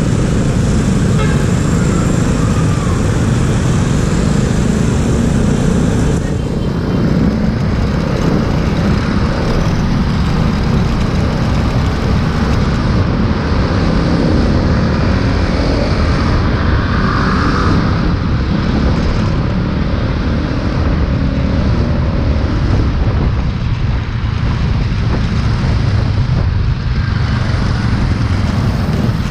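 A motorcycle running along a city street with surrounding traffic, heard from a camera on the bike, with heavy wind rumble on the microphone. Steady throughout with no sharp events.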